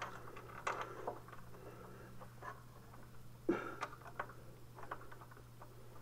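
Light clicks, taps and scrapes of a motorcycle's front brake caliper being slid onto its disc rotor by gloved hands, metal against metal, with one sharper knock about three and a half seconds in.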